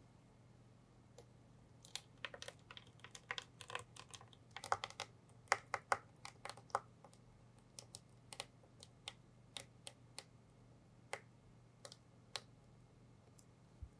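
Mango jelly poured from a glass bowl into a paper-lined mold, heard as a run of small, faint, irregular clicks and taps, thickest a few seconds in and thinning out toward the end.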